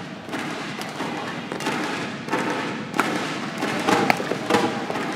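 Badminton rally: rackets striking the shuttlecock, several sharp hits roughly once a second, over a steady hum of crowd noise in a sports hall.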